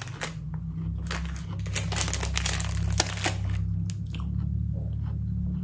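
A crisp butter cookie, like shortbread, being chewed: dense crunches for the first three seconds or so, then fewer and more spread out, over a steady low hum.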